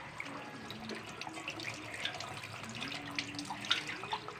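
Kitchen faucet running into a stainless steel sink as whole tilapia are washed under the stream by hand, with splashing and wet handling of the fish.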